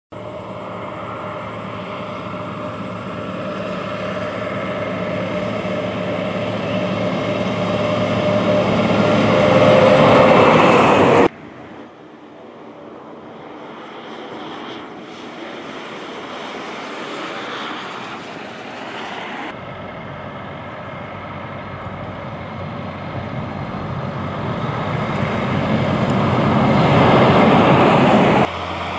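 Road trains, heavy diesel trucks hauling multiple trailers, driving past. Engine and tyre noise builds steadily as each truck draws near, in three separate passes. The first and last passes cut off abruptly at their loudest.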